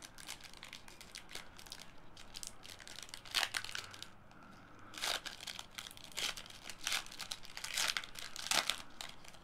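Trading card pack wrapper being torn open and crinkled by hand: irregular crackling and rustling, with sharper crinkles about three and a half and five seconds in and several more near the end.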